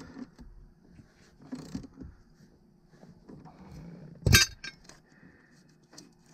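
Light handling of a car battery's terminal, cable and hand tools: faint scattered metallic clinks and rustles, with one sharp clink about four seconds in and a smaller one near the end.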